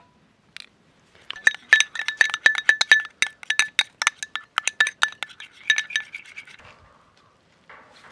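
Metal spoon clinking rapidly against a small glass bowl while beating an egg, about five strikes a second, each with a brief glassy ring. The strikes stop about six seconds in.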